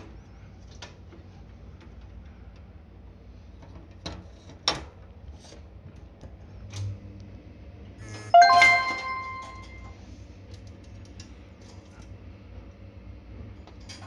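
Small brass bell on a parrot's cage toy, rung once by the parrot about eight seconds in, a clear ring that dies away over about a second and a half. A few sharp taps and clicks come a few seconds before it.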